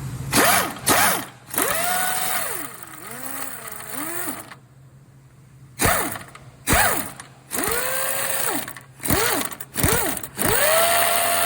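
A hand-held power tool on a stuck trailing arm bolt, triggered in about ten short bursts. Each burst spins up, holds a steady pitch, then winds down, and one longer pull wavers in speed, as if the tool is being worked under load.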